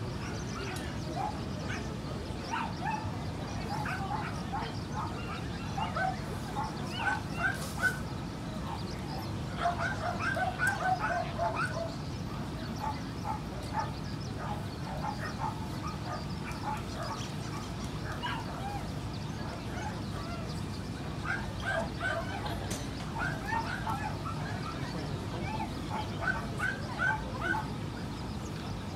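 Dogs yapping in several bouts of quick, high, short barks, over a steady low background noise.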